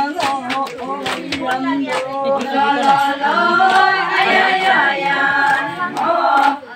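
A group of women singing a traditional Adi folk song together in long held phrases, with hand claps keeping a beat in the first second or so and again near the end.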